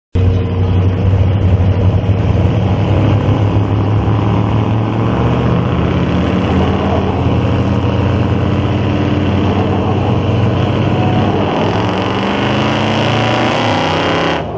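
Two 1970s Ford pickup engines running hard at high, fairly steady revs as the trucks pull against each other under load. In the last few seconds a hiss rises over the engine noise as tyres spin and smoke on the pavement.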